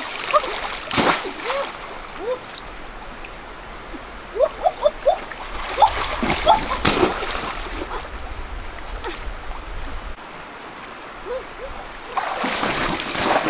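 Water pouring and splashing off a woven bamboo basket as it is scooped through a shallow river and lifted out, in three louder bouts: about a second in, around six to seven seconds, and near the end. The stream runs steadily underneath.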